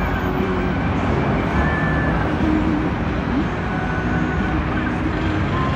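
Night buses running in a floodlit bus lot: a steady, loud engine rumble as a bus moves off.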